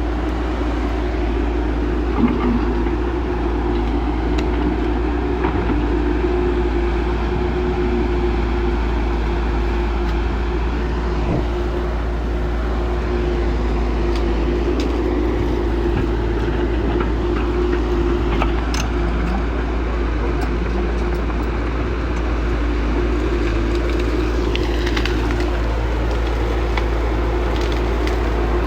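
Diesel engines of heavy earthmoving machinery running steadily, with a constant low hum and a few scattered knocks. A single falling sweep in pitch comes near the end.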